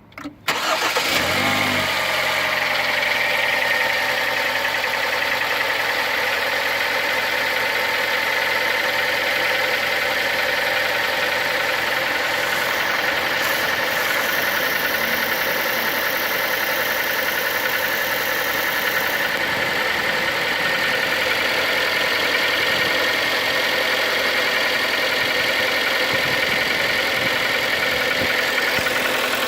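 Kia Sportage's four-cylinder petrol engine starting about half a second in, then idling steadily. The idle carries the knock that the owner suspects may be scuffing (scoring) in the cylinders.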